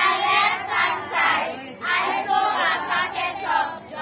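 A group of schoolchildren singing together in unison, in short phrases.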